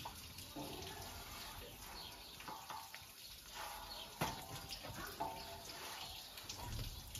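Water running from a tap, with scattered short clinks and a sharp knock about four seconds in.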